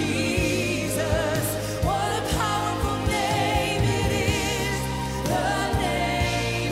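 Live gospel worship music: a woman sings the lead with vibrato over backing singers and a band, with a steady drum beat.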